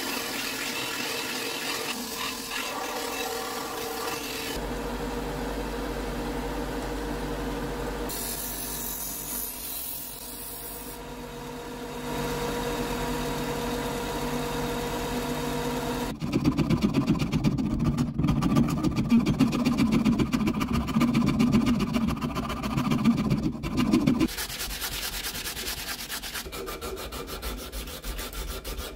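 Wood being sanded and rasped, in a run of short cuts. For about the first sixteen seconds a steady machine hum runs under the sanding. Then come rapid, louder rubbing strokes for about eight seconds, then steadier sanding.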